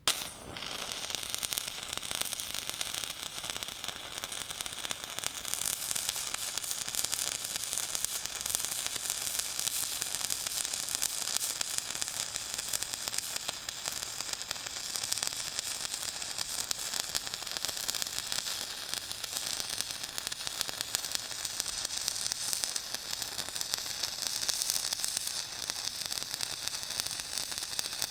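Electric arc welding: a steady crackling sizzle that starts abruptly as the arc is struck and runs evenly.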